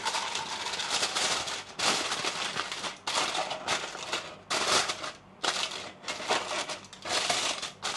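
Aluminium foil crinkling and crumpling in irregular bursts with short pauses as it is folded and wrapped around a steak.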